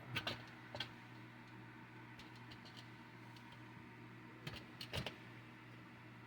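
A few short knocks and clicks of hardware being handled while an attic fan is mounted: a cluster right at the start, one just under a second in, and another cluster about four and a half to five seconds in, over a steady low hum.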